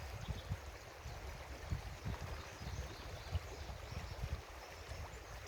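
Small river's water running and gurgling, with irregular low rumbling on the microphone.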